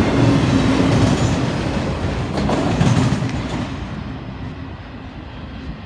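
Freight train of autorack cars rolling past fast, wheels knocking over the rail joints. About three seconds in, the noise starts fading steadily as the end of the train moves away.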